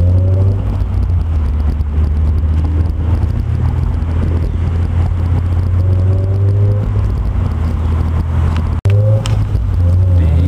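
Honda S2000's four-cylinder engine droning through an HKS exhaust and test pipe, rising in pitch several times as the car accelerates. The sound cuts out for an instant about nine seconds in.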